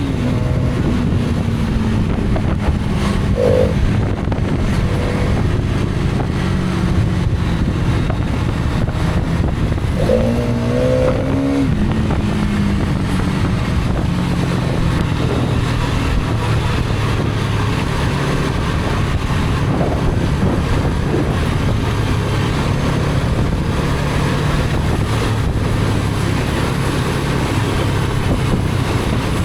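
Hero Karizma XMR's 210 cc single-cylinder engine running under way, its pitch falling at the start as the bike slows and then shifting with the throttle, over a steady rush of noise. A brief higher tone sounds a few seconds in, and a wavering, rising pitched sound about ten seconds in.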